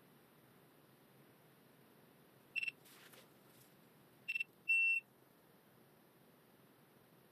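GoPro HERO12 Black action camera beeping: one short beep about two and a half seconds in, then two quick beeps and a slightly longer beep close together nearer the middle, all on the same high pitch.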